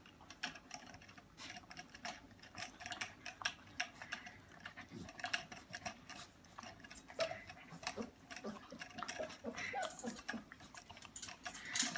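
Saint Bernard puppies lapping at the metal drinking tube of a hanging water bottle: a fast, irregular run of small clicks and ticks as their tongues work the spout.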